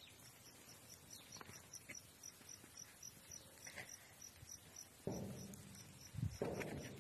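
An insect, likely a cricket, chirping in a steady high-pitched train of even pulses, about four or five a second. About five seconds in, a louder low rumble starts suddenly and fades, and a couple of low thumps follow near the end.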